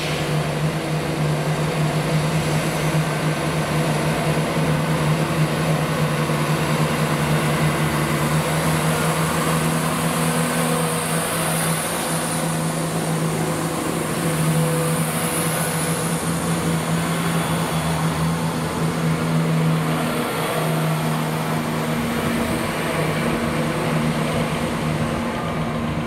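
Diesel train engine running at a steady pitch, a constant low hum over a broad mechanical noise.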